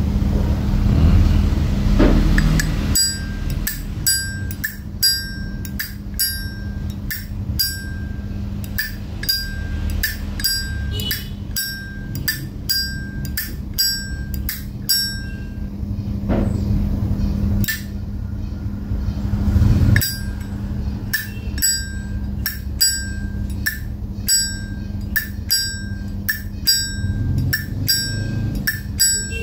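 Brass-and-chrome Zippo lighter lid flicked open and snapped shut over and over: a run of crisp metallic clicks, each followed by a short bright ring, with a pause of a few seconds in the middle.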